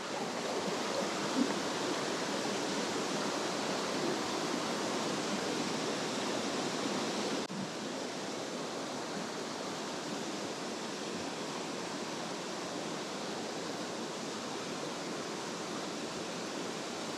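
Steady rushing of a fast mountain stream, white water pouring over rocks, as an even hiss-like wash with no breaks; it drops slightly in level about seven seconds in.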